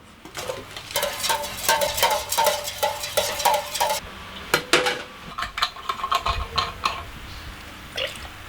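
Rapid metallic clinking and clattering for about three seconds, from tools or metal parts being handled, then scattered knocks and clinks.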